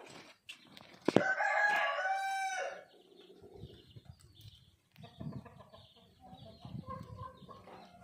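Aseel rooster crowing once, about a second in: a single held crow of under two seconds that drops off at the end, just after a sharp click. Softer, scattered bird sounds follow.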